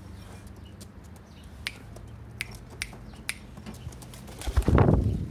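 Racing pigeons pecking at feed in plastic cups inside a wire loft cage: scattered sharp clicks, about one every half second. Near the end comes a loud rustling burst.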